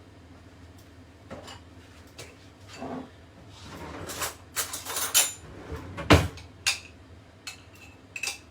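A metal spoon scraping coconut oil out of a jar, with knocks and clinks of the spoon against the jar and the air fryer basket. The loudest knock comes about six seconds in.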